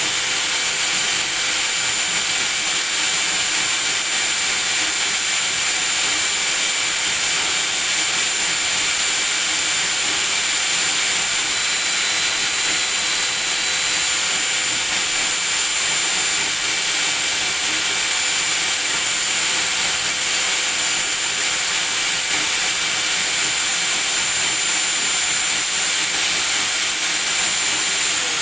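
Electric drill running steadily at full speed, spinning a washing-machine motor converted into a generator with neodymium magnets. A steady high whine sits over an even rushing hiss.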